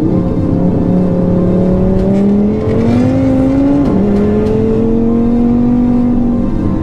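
2018 Audi RS3's turbocharged five-cylinder engine, on a Unitronic stage 2 tune, pulling hard under full throttle, heard from inside the cabin. The engine note climbs steadily, drops sharply at an upshift about four seconds in, then climbs again.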